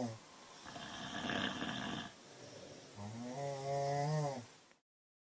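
A person snoring: a breathy breath, then a long, pitched snore. The sound cuts off suddenly near the end.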